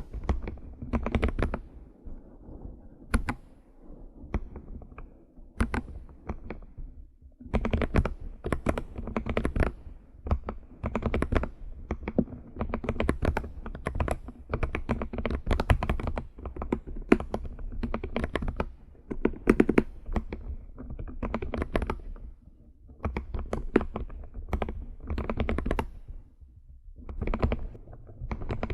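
Typing on a computer keyboard, keys clicking in quick runs with short pauses between them, sparser for the first few seconds.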